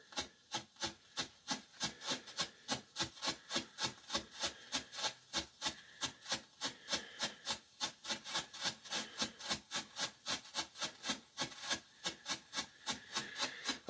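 90-second strobe firework burning, each flash giving a short rasping fizz in a steady rhythm of about four pulses a second.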